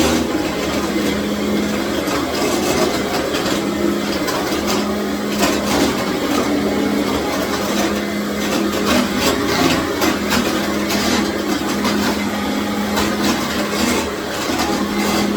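Commercial vacuum cleaner running steadily over a tile floor, its motor hum rising and falling a little in strength, with frequent small clicks and rattles through the rushing air noise.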